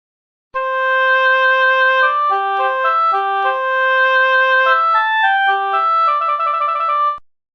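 Short melodic radio transition jingle played on a single woodwind-like instrument: one long held note, then a run of shorter notes stepping up and down that quickens toward the end before cutting off.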